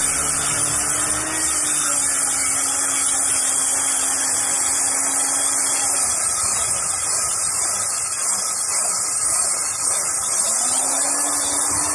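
Angle grinder cutting into aerated concrete block, giving a steady, loud motor whine over a harsh grinding hiss. About halfway through, the motor's pitch sags as the disc bites into the cut, then climbs again near the end before dropping.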